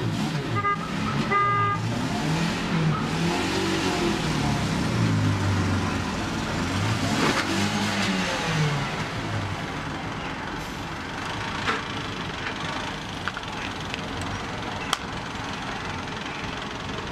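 Street traffic: a car horn gives two short beeps about a second in, over the rumble of passing vehicles, with low engine sounds rising and falling.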